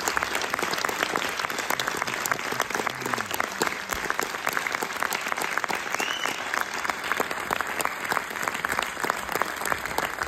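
Theatre audience applauding steadily: a dense patter of many hands clapping.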